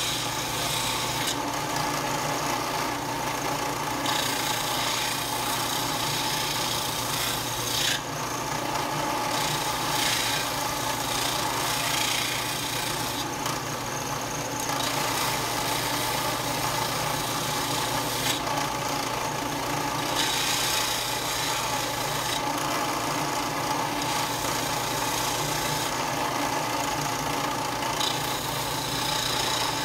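Bench disc sander running steadily while a die-cast metal model truck cab is pressed against the disc and ground thinner. The grinding hiss comes and goes in stretches of a few seconds as the piece is pushed in and eased off, over a constant motor hum.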